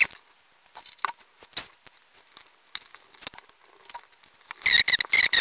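Light clicks and taps as the stainless steel caseback of a Casio CA-53W calculator watch is handled and fitted back onto the case. From about four and a half seconds in comes a quick run of sharp clicks that each ring briefly.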